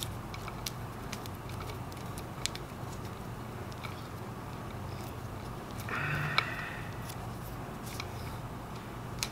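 Faint clicks and rustles of insulated wires and a plastic wire nut being handled and twisted, over a steady low hum, with a brief louder rustle about six seconds in.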